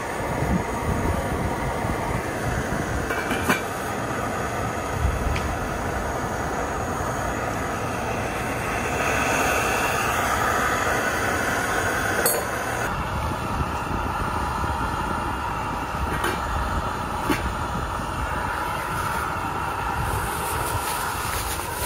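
Wind buffeting the microphone over the steady rush of a portable gas camp stove burning under a pan of vegetables, with a few light knocks of handling on the picnic table.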